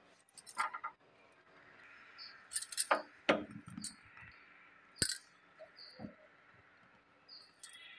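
Scattered light metallic clinks and taps as a metal rod turns whole brinjals on the steel pan support of a gas stove, over the faint hiss of the burner flame.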